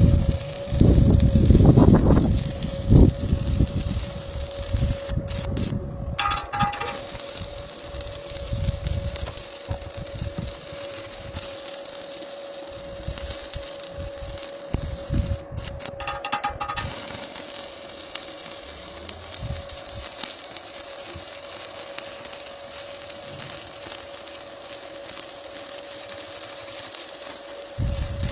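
Electric arc welding: a continuous crackling hiss with a steady whine underneath. The arc breaks off twice briefly, about five seconds in and again around fifteen seconds. Irregular low knocks come in the first few seconds.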